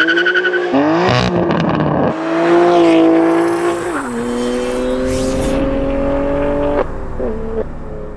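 BMW M2 Competition's S55 twin-turbo straight-six under hard acceleration: engine pitch climbs and holds, then drops sharply about four seconds in at an upshift and climbs again. The sound breaks off abruptly a few times, as between spliced driving clips.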